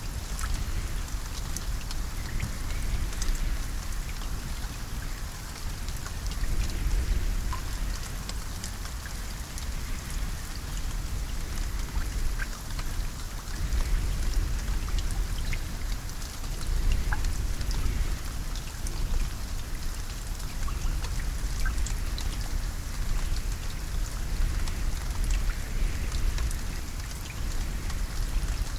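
Steady rain falling, with many scattered individual drop ticks and a deep low rumble underneath.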